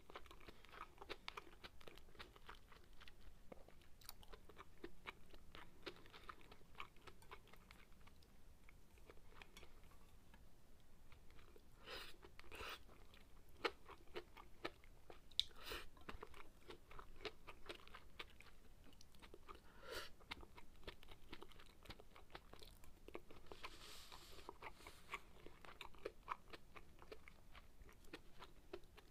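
Faint, close-up chewing and mouth sounds of a person eating sukiyaki, with dense small clicks throughout. A few sharper, louder clicks stand out around the middle.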